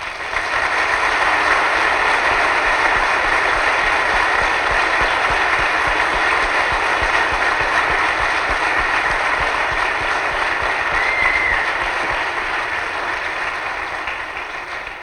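A congregation applauding: many people clapping in a dense, steady patter that starts at once and dies away slowly near the end.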